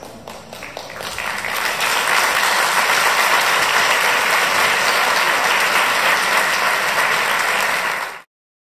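Audience applauding, swelling over the first couple of seconds, then cutting off suddenly near the end.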